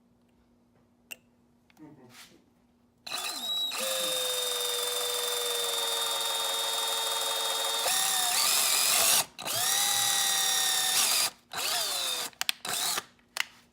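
Electric drill boring a hole into an engine coolant part for a coolant temperature sensor. It runs steadily for about six seconds, its pitch dropping as it loads up, then stops, runs again for about two seconds, and finishes with a few short trigger bursts.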